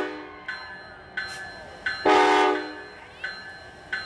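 A train horn sounds one short blast about two seconds in, the loudest sound here. A locomotive bell rings steadily around it, with a strike about every 0.7 s.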